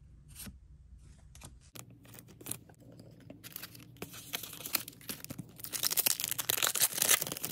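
Light rustles and clicks of a clear plastic card sleeve being handled. From about three and a half seconds in, a Disney Lorcana booster pack's foil wrapper crinkles and tears as it is ripped open, loudest near the end.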